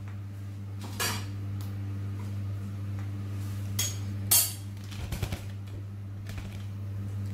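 Kitchen utensils being handled: a clink of steel about a second in and a sharper clatter about four and a half seconds in, as a spatula is picked up from a steel tray, followed by a few low knocks, all over a steady low hum.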